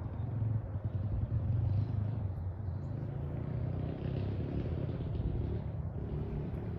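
Harbor Breeze Springfield 52-inch ceiling fan running, a steady low rumble.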